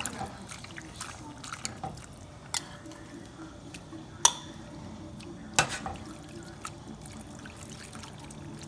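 Beef au jus at a boil in a pan, with liquid dripping and bubbling and scattered sharp clicks. The loudest clicks come about four seconds and five and a half seconds in.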